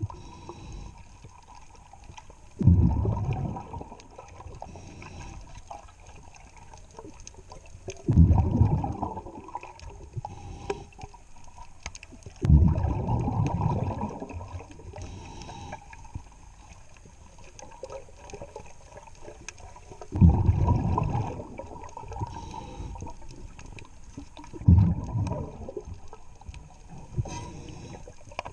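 Scuba diver's exhaled bubbles rushing from the regulator underwater in bursts, five times, every four to eight seconds, with quieter stretches of low water noise between breaths.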